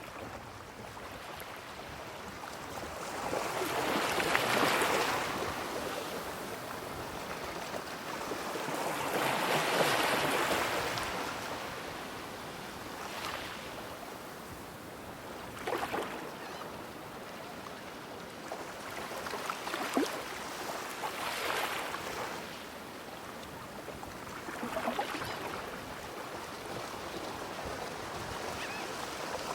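Waves breaking on the shore, the surf swelling and falling back every few seconds, with a couple of brief crackles near the middle.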